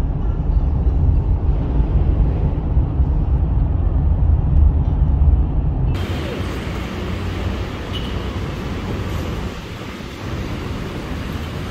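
Steady rumble of a road vehicle in motion, heavy and deep at first, changing abruptly about six seconds in to lighter, hissier traffic noise.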